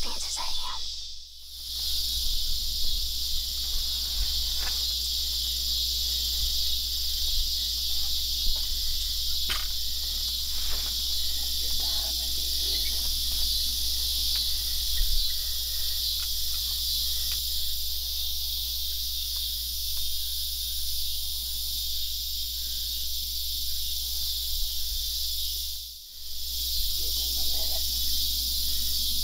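Steady, high-pitched evening insect chorus over a low steady rumble. The sound dips briefly about a second in and again near the end.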